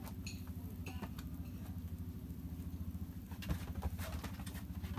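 Kittens scampering and tussling on a cloth-covered mattress: soft paw patter and scratching on the fabric, with a couple of sharper knocks after about three and a half seconds, over a steady low hum.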